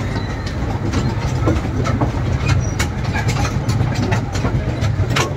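Amusement-park toy train running, with a steady low rumble and irregular sharp clacks and rattles of the cars along the track.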